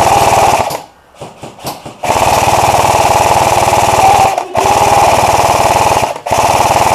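G&P Stoner 63 (MK23) electric airsoft light machine gun firing long full-auto bursts, a fast mechanical rattle. The first burst stops within the first second, and after a pause of about a second the gun fires three more long bursts, each split from the next by a brief break.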